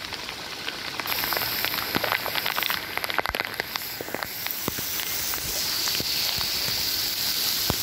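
Heavy rain falling, a steady hiss with many sharp, irregular drop hits close to the microphone.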